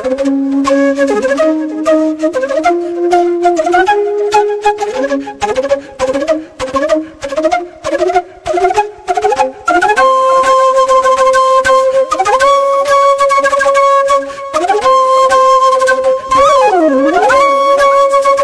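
Solo flute music laid over the video: a melody climbing step by step in short notes, then long held notes from about ten seconds in, with a swooping bend down and back up near the end.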